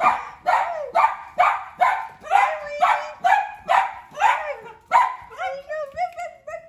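Pet dogs barking in an excited, steady run of about two barks a second, then switching to higher, wavering whining cries near the end. The dogs are freaking out at their owner's homecoming.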